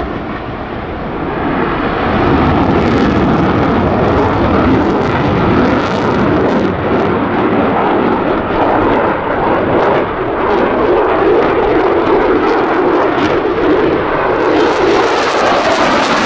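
F-16 Fighting Falcon's single jet engine running loud as the fighter manoeuvres overhead, a dense continuous jet noise that is a little softer for the first couple of seconds and turns sharper near the end as the jet comes closer.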